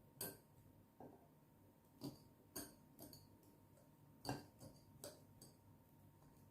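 Faint, scattered light taps and clicks from kitchen utensils and a bowl being handled, about eight over several seconds at an uneven pace.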